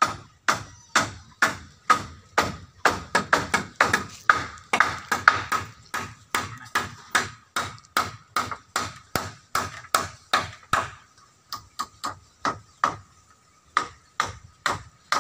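Hammer blows driving nails into timber boards and battens, a quick irregular run of sharp ringing strikes about two or three a second, thinning to a few scattered blows near the end.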